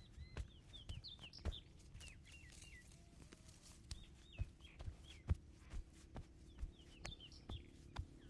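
Irregular sharp slaps and taps of hands during a massage, one or two a second, with small birds chirping in short rising and falling calls.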